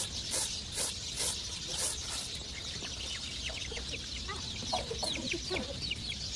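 Domestic chickens clucking, with many short high peeping chirps coming thick in the second half. A few short hissing scrapes come in the first two seconds.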